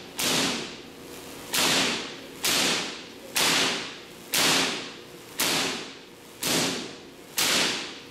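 Van de Graaff generator firing artificial lightning bolts into a metal cage: a string of eight sharp spark cracks, about one a second, each dying away in the hall's echo.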